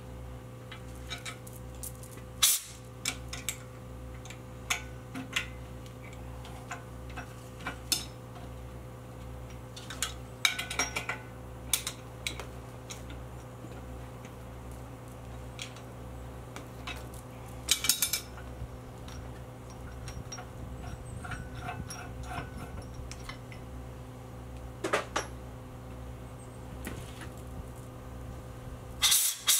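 Scattered sharp metal clinks and clanks as a hand-chain hoist is worked and a cast cement mixer yoke with its ring gear is eased into place, over a steady low electrical hum. A louder hiss starts near the end.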